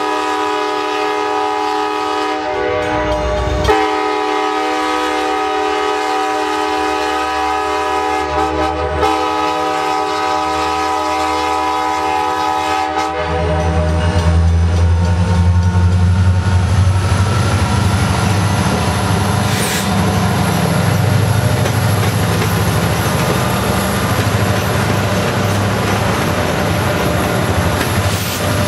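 Alaska Railroad SD70MAC diesel-electric locomotives leading a passenger train. A multi-chime air horn sounds at a grade crossing in long blasts, broken twice, for roughly the first 13 seconds. Then the lead units pass close by with a loud, low diesel engine rumble and a steady high whine.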